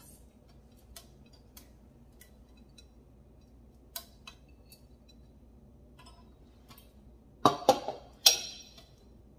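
Light, sparse clicks and taps from a textured glass canister with hammered metal bands and a metal lid being handled, then a loud clatter of glass and metal about two seconds before the end as it is set down on the countertop and the lid settles.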